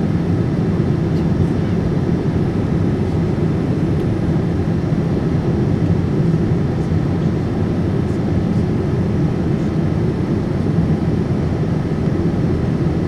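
Steady cabin noise of a Boeing 787-9 on approach, heard from a window seat over the wing: a constant low rumble of airflow and its Rolls-Royce Trent 1000 engines.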